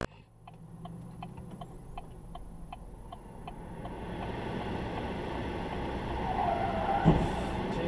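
Steady ticking about four times a second that fades out after a few seconds. Then street traffic, a short tyre squeal and one loud thud about seven seconds in: a car running a red light crashing into a pickup truck.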